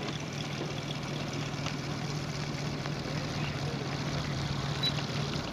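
Moki 250cc five-cylinder radial four-stroke engine of a quarter-scale model P-47 running steadily at an even, low speed, then cutting out near the end.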